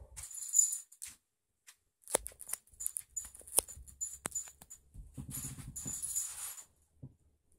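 Rottweiler puppy moving about on the floor: scattered sharp taps and clicks in the middle, then a low rumbling sound about five seconds in.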